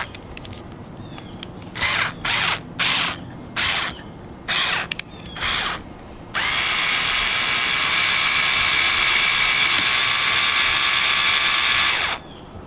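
Small cordless power screwdriver driving a screw on an RC truck's suspension: about six short pulses of its motor whine, then one long run of about six seconds before it stops.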